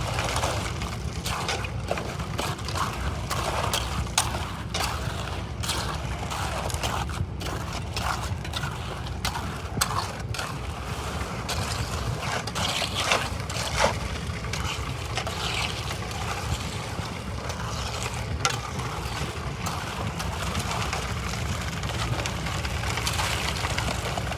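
Machinery running with a steady low hum, with frequent irregular clicks and knocks over it.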